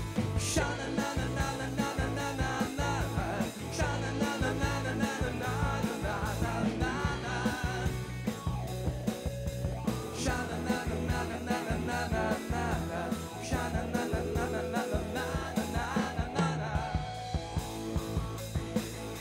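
Rock band playing live: a drum kit keeping a steady beat under electric bass and electric guitar, with a male singer's voice over the band.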